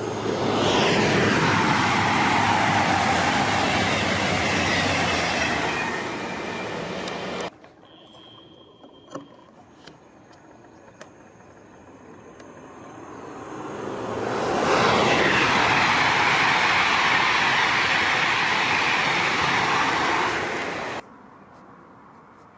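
Two trains passing at speed, each a loud rushing of wheels on rail and air with a pitch that falls as it goes by. Each cuts off suddenly, the first about seven seconds in and the second near the end, with a quieter stretch of faint clicks between them.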